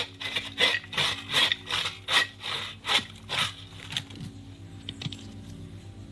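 Dry cedar bark being scraped and rubbed to shred it into tinder: rhythmic rasping strokes, about two or three a second, that stop about four seconds in.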